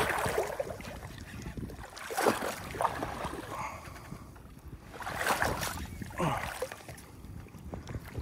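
Water splashing in four short bursts, over low wind rumble on the microphone.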